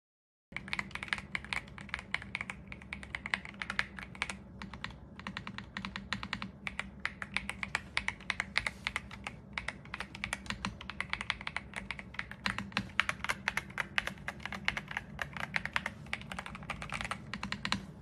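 Continuous fast typing on an RK Royal Kludge R75 gasket-mounted 75% mechanical keyboard: a dense, uneven run of key clicks and bottom-outs, starting about half a second in, over a faint steady low hum.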